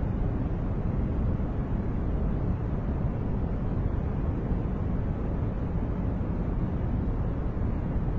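Steady masking noise from a 'white noise' track, though weighted heavily toward the low end: a deep, even rush with no changes.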